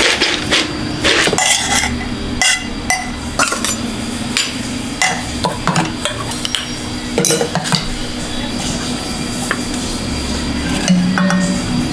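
Irregular knocks and clinks of utensils against pots and dishes, with stirring in between.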